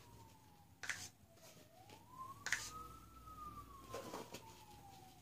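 A faint siren wailing, one slow rise and fall in pitch. A few soft clicks and taps come from paint cups being handled.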